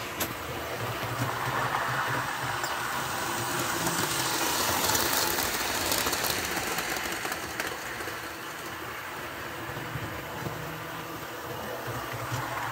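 Electric model train running along sectional track: a steady motor hum with wheel noise, louder as the train passes close about five seconds in, then easing off.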